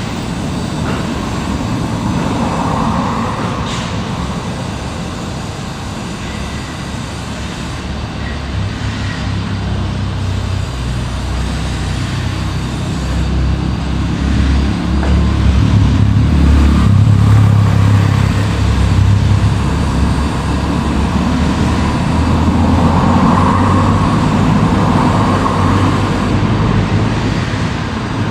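Heavy machine's engine running with a steady low rumble, growing louder about halfway through.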